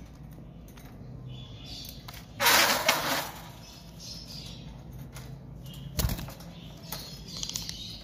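Fischer's lovebirds in a wire cage: a loud burst of wing flapping a little after two seconds in, a sharp thump around six seconds, and short high chirps here and there.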